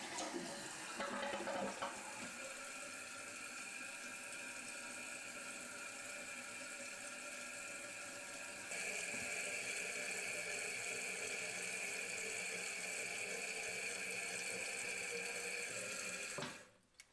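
New toilet's fill valve refilling the tank after a flush: a steady hiss of running water, with the last of the flush gurgling in the first couple of seconds. The hiss gets louder about halfway and cuts off abruptly near the end as the valve shuts at the full level.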